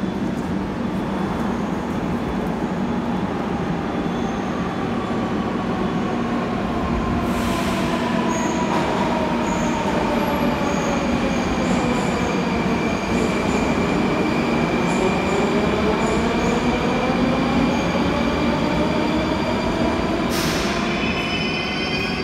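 Moscow metro train in the station: a steady rumble with the electric motor whine gliding down in pitch, then climbing again from about the middle as a train accelerates away. There is a thin high steady tone in the second half, and two short hisses, one about a third of the way in and one near the end.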